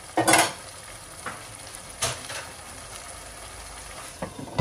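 Chicken in tomato gravy simmering with a steady soft sizzle in a pot on the stove. A brief utensil clatter comes about a quarter second in, and a few lighter knocks against the pot follow later.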